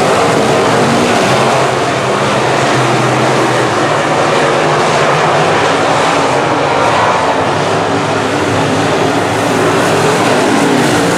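A field of semi late model race cars running together on the track, many engines blending into one loud, steady sound.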